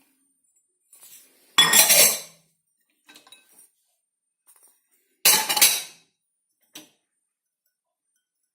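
Clean dishes being unloaded from a dishwasher, clattering and clinking as they are handled and set down: two louder clatters, about a second and a half in and again about five seconds in, with a few light clinks between.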